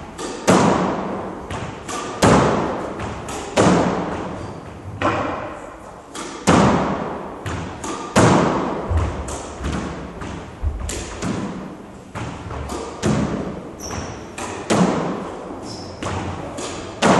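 Squash rally: the ball cracking off racquets and smacking the walls in sharp, echoing hits about every one and a half seconds. Near the end there are a couple of short high squeaks from shoes on the wooden court floor.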